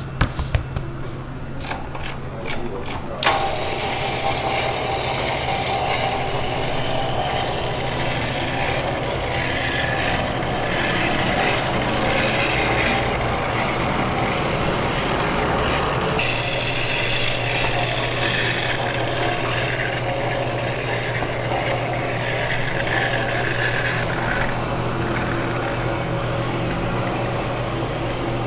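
Hands slap and pat a slab of dough on a floured steel table a few times, then an electric dough sheeter starts about three seconds in and runs steadily as the dough is fed through its rollers.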